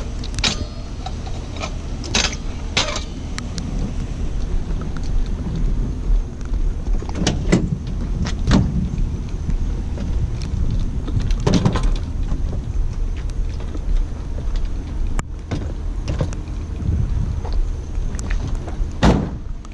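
Rattles and knocks of a child's bicycle being wheeled and handled, a handful of sharp irregular clanks over a steady low rumble.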